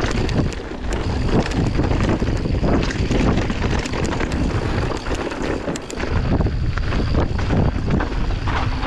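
Wind rushing over the microphone as a 2018 Orbea Rallon enduro mountain bike descends a trail at speed, with the tyres and bike rattling over rough ground in frequent sharp knocks.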